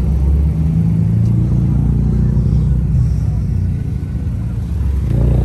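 Car engine idling close by, a steady low rumble.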